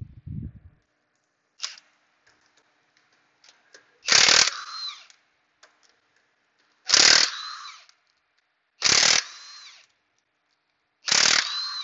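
Impact wrench spinning off the wheel's lug nuts: four short bursts two to three seconds apart, each loudest at the start and trailing off within about a second.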